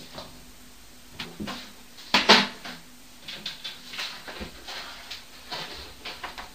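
A series of irregular household knocks and clatters in a small room, the loudest one about two seconds in, followed by several lighter taps and rattles.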